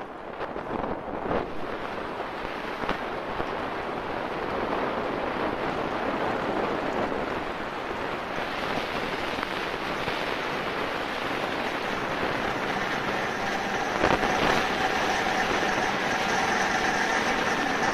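LG washing machine in its spin cycle, the drum speeding up with a steady rushing, rattling noise that slowly grows louder. There are a few knocks near the start, a sharper knock about fourteen seconds in, and then a faint whine. The noise is the spin problem the machine is shown for.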